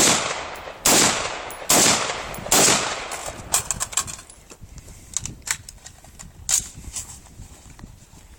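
Rifle fire: four loud shots about a second apart, each with a long echoing tail, then a scatter of quieter, shorter shots over the next few seconds.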